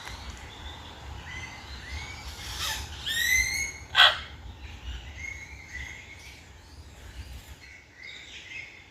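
Birds calling in an aviary: many short chirps, a harsh call of several quick notes about three seconds in, and one loud sharp note about a second later.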